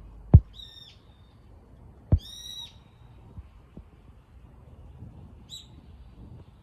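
Two sharp, loud thumps, each followed closely by a short, high, clear bird call, and a third brief call near the end.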